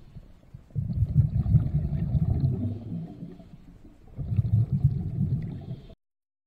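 Scuba diver's exhaled bubbles heard underwater at the camera: two low, bubbling bursts of about two seconds each, with a quieter breath in between.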